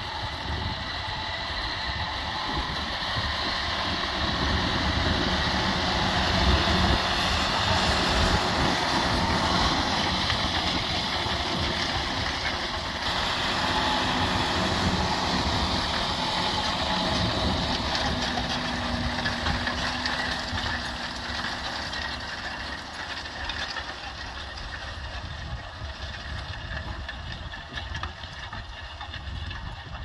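John Deere 6215R tractor's six-cylinder diesel engine working under load while pulling a Kverneland reversible plough through the soil. It grows louder towards a peak about a third of the way in, then gradually fades.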